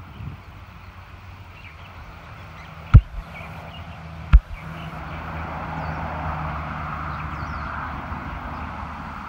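Car driving slowly along a road, heard from inside: a steady engine and road hum with rushing noise that swells in the second half. Two sharp knocks about three and four and a half seconds in are the loudest sounds, with faint bird chirps above.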